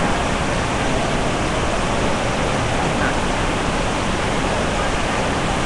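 Heavy monsoon rain in a steady, loud downpour: one even hiss without breaks or separate drops, picked up on a webcam microphone.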